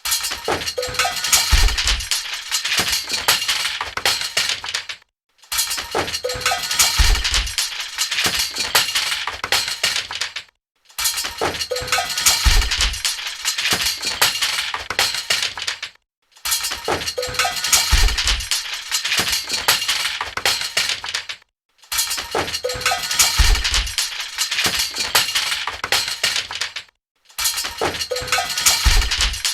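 Loud metal clunking and clinking, a dense jumble of knocks and rattles with a short ringing note and a low thud in each pass. The same five-second stretch repeats about six times, with a brief silence between repeats.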